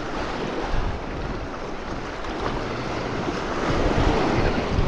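River water rushing and splashing around a kayak close to the microphone, with wind buffeting the microphone; it grows a little louder in the second half.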